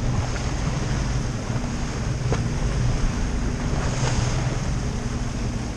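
Outboard motor running steadily at trolling speed, with water rushing past the hull and wind buffeting the microphone.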